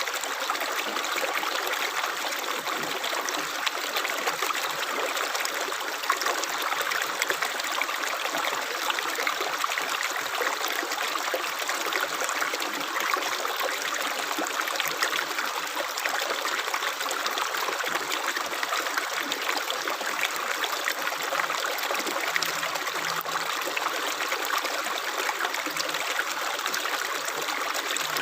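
Running water flowing steadily and unbroken, as of a small stream.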